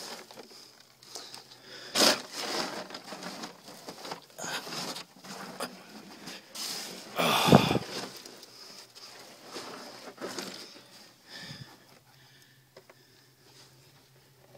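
Irregular scuffs, scrapes and rustles from someone shifting around in a cramped dirt tunnel under a concrete slab, loudest about two seconds in and again near the middle, then dying down, over a faint steady hum.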